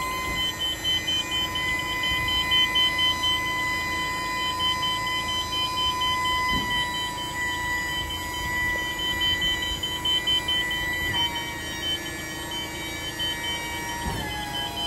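Hydraulic pump motor of a Nissan Interstar factory tipper body whining steadily while its ram raises the tipping body. The pitch steps down slightly twice in the last few seconds, and a rapid high-pitched beeping runs alongside.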